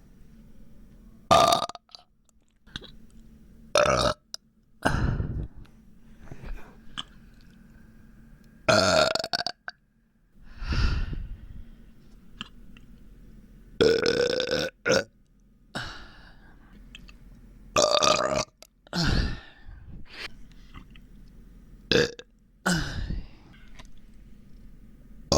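A person burping again and again: about ten separate burps with short pauses between them, a few of them drawn out to about a second. The burps come from a bloated, aching stomach.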